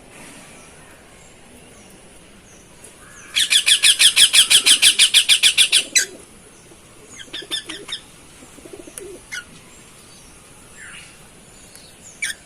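Cockatiel calling: a loud, fast run of repeated chirps, about eight a second for two and a half seconds, followed by a few scattered, softer chirps.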